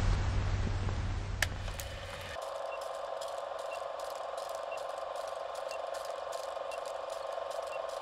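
Television static hiss with a low hum, broken by one sharp click, switches about two seconds in to the sound of a film projector running: a steady hum under a fast, even mechanical clatter, with a short high beep once a second as a countdown leader ticks down.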